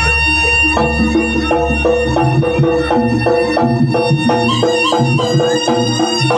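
Live jaranan ensemble music: a held high melody line over rapid, evenly repeated pitched notes and a pulsing low drum beat.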